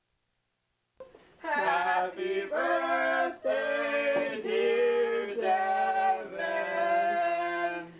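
Singing voices holding long notes in phrases of about a second each, the pitch changing from phrase to phrase, with no drums. It starts about a second and a half in, after silence.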